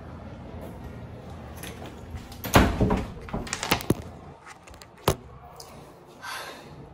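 A stiff office door being handled. It bangs loudly about two and a half seconds in, then rattles with a second of sharp knocks. A single sharp latch click comes about five seconds in.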